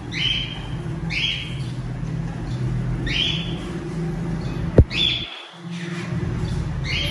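Chicks peeping: loud, short falling peeps, about one a second, over a steady low hum. About two-thirds of the way through there is one sharp click, and the sound is briefly muffled.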